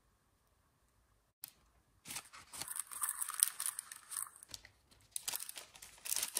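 Crinkly plastic-foil blind-bag pouch of a Zuru Mini Fashion toy being handled and opened, rustling and crinkling in two bouts after a brief quiet start.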